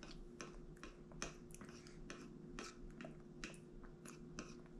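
A baby chewing a mouthful of durian: soft, wet smacks and clicks of the lips and tongue, about three a second and unevenly spaced.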